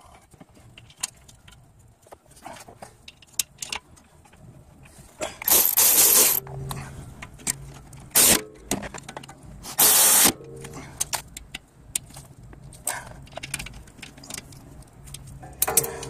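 Metal clinks and rattles of a brake caliper and its hardware being handled and fitted back over the pads, broken by three loud rustling bursts of handling noise.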